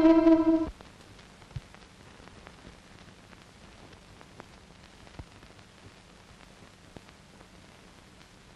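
A held musical note cuts off under a second in, leaving a long stretch of faint steady hiss with a few scattered small clicks from the soundtrack.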